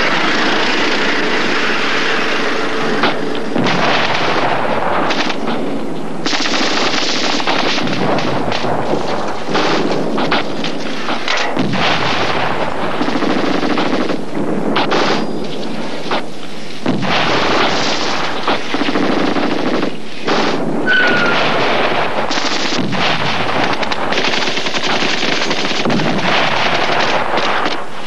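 Heavy automatic gunfire: near-continuous bursts of machine-gun fire with a few brief lulls.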